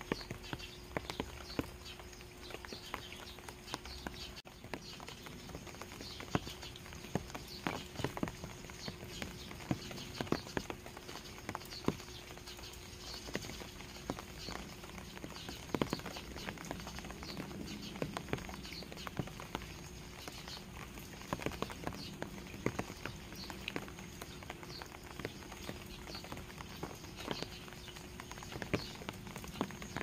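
Steady light rain with irregular close drops pattering and ticking, dripping from the edge of a thatched roof onto wet ground and stones.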